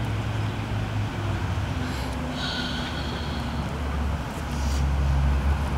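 Low, steady drone of motor-vehicle engines in nearby street traffic, dropping to a deeper hum about four seconds in, with a brief high-pitched sound about two and a half seconds in.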